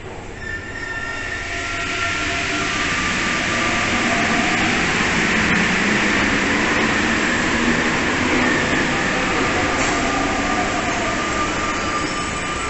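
Rubber-tyred MP89 metro train pulling out of the platform. Its electric traction whine and running noise climb over the first two seconds, stay loud for several seconds, then ease near the end.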